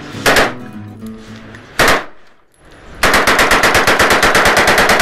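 AR-15 carbine in 5.56 mm with a Slide Fire bump-fire stock: two single shots, then from about three seconds in a fast, even string of bump-fired shots at about eight or nine a second, the recoil working the trigger so that it sounds like full-auto fire.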